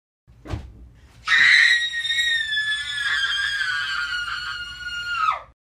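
A girl screaming: one long, high-pitched scream lasting about four seconds that drops in pitch as it breaks off, after a brief thump.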